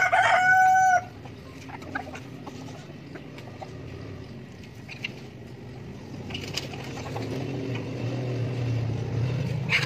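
Chickens: one bird gives a loud, drawn-out call on a single held pitch through the first second, which cuts off abruptly. After it come scattered soft clicks over a low hum that grows louder near the end.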